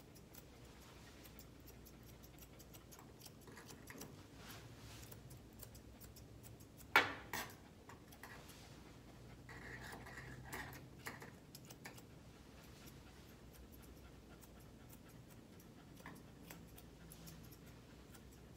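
Grooming scissors snipping through a West Highland White Terrier's coat in faint, quick snips, with one sharper click about seven seconds in.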